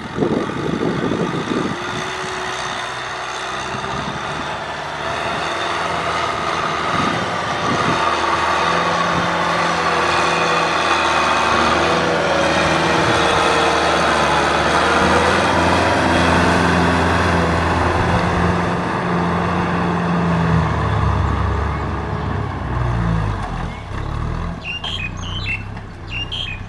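Kubota M6040SU tractor's diesel engine running steadily under load as it drives a rear rotary cultivator through the field soil, the tiller blades churning the earth. The engine pitch wavers near the end.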